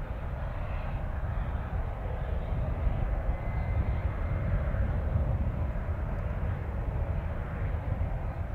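Steady jet aircraft noise on an airport apron: a continuous rush with a deep rumble underneath and a faint high whine for a second or so in the middle.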